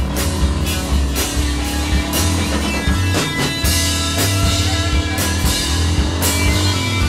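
Rock music with drums and electric guitar over a steady beat.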